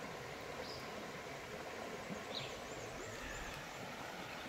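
Quiet woodland ambience: a steady background hiss with a few short high bird chirps and a brief, high warbling bird song about halfway through.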